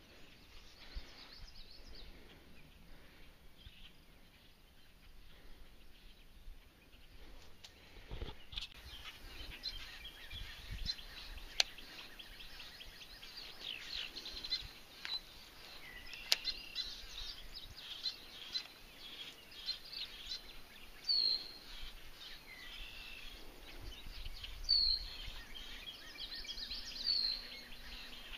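Birds chirping and calling over a quiet outdoor background, busier after the first few seconds, with a short falling call repeated several times in the last third. Two sharp clicks stand out in the middle.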